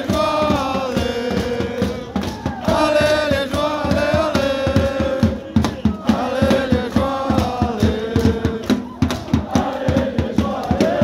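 Crowd of football supporters singing a chant together in unison, over a steady beat of hand claps.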